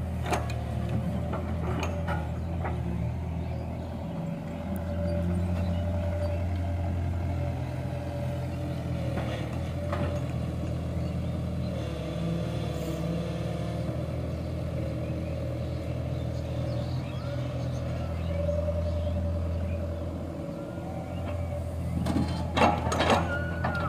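Diesel engines of a tracked excavator and an idling Sonalika tractor running steadily, the excavator's engine rising under load twice as it digs and swings its bucket. Near the end come several sharp knocks as the bucket dumps mud into the steel tractor trolley.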